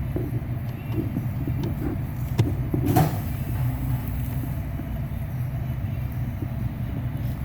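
Small clicks and a sharp knock about three seconds in as the plastic mode door actuator's Torx screws are fitted and tightened, over a steady low hum.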